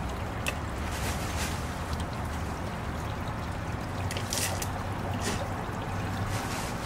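Steady trickle of water running underneath a few light clicks and rattles of expanded clay pebbles (hydroton), which are being packed into a net pot around a pepper plant.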